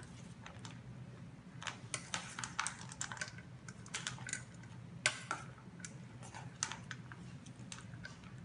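Formosan mountain dog puppy eating from a metal bowl: irregular clicks and clinks of chewing and food against the bowl, in quick clusters, the loudest about five seconds in, over a low steady hum.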